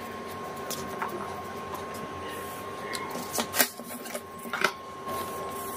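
Hands working a steel ruler and marker over a newspaper pattern sheet: a few short rustles, scrapes and taps, the loudest about three and a half seconds in. A faint steady whine runs underneath.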